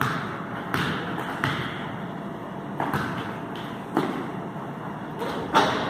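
Basketballs bouncing and being caught on a gym floor: about six irregular thuds, the loudest near the end, over a steady murmur of hall noise.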